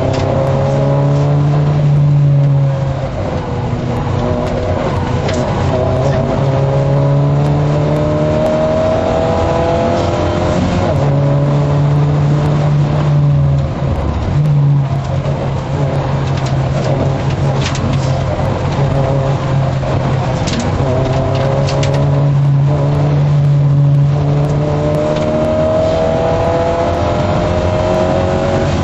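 MG F rally car's mid-mounted four-cylinder engine heard from inside the cabin at stage pace, rising in pitch through the gears again and again, with brief dips at each gear change.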